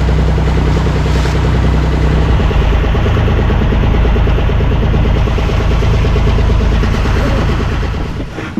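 A fishing boat's engine running steadily under way, a low hum mixed with the rush of water and wind, easing off and getting quieter near the end as the boat slows.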